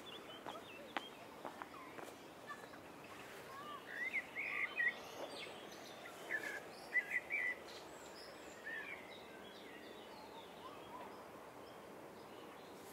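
Small birds chirping in a string of short calls over a steady outdoor background, busiest from about four to nine seconds in. A few footsteps tap near the start.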